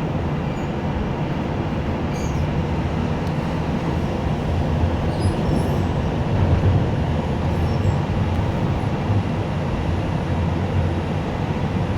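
Light rail train in motion, heard from inside the car: a steady low rumble.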